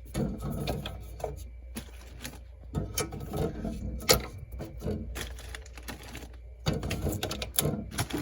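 Plastic water bottles being handled and set into a mini fridge: irregular clicks, taps and knocks, the sharpest about four seconds in.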